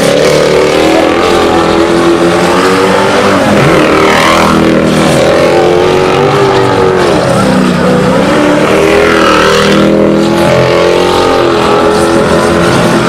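A car's engine revving hard while its rear tyres spin in donuts, with the revs rising and falling as the throttle is worked and dipping briefly about four seconds in and again near nine seconds.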